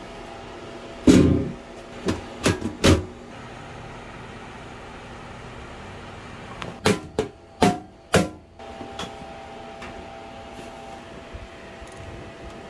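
Sharp knocks and clunks of hands and tools against a metal electrical enclosure and its perforated backplate. There are four in the first three seconds, the first the loudest, then another four in quick succession around seven to eight seconds in, over a faint steady hum.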